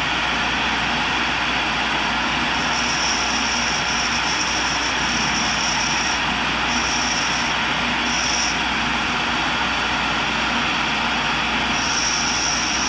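Tool and cutter grinder running while its grinding wheel is dressed to shape, a steady loud hiss. A high-pitched whine comes in and drops out several times.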